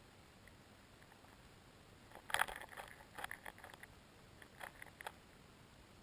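Faint underwater ambience in shallow lake water: a steady hiss with clusters of small clicks and crackles, the loudest bunch about two seconds in and a smaller one near five seconds.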